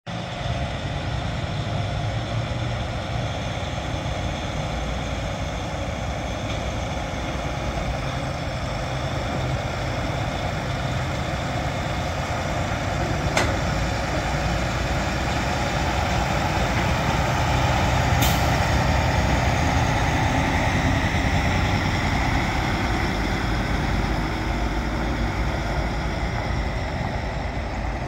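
Diesel semi tractor hauling a loaded lowboy trailer, its engine running steadily as it drives in, getting a little louder as it comes close. A sharp click about 13 seconds in and another short sharp sound about 18 seconds in.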